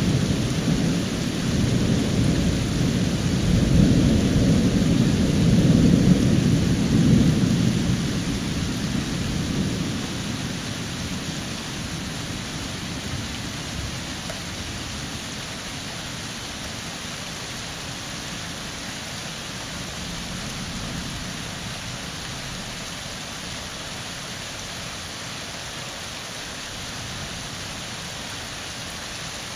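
Thunder rumbling over steady rain, the rumble swelling to its loudest a few seconds in and dying away after about ten seconds, leaving the rain's hiss on its own.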